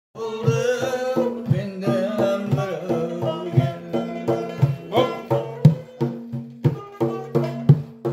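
Doira frame drum beaten by hand in a steady rhythm, about two strokes a second, with deep strokes standing out, accompanying music with held drone tones. A wavering melody line runs over it in the first three seconds.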